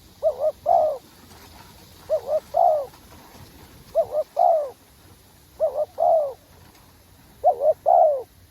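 Spotted dove cooing: five repeated phrases, each two short coos followed by a longer falling coo, about every two seconds.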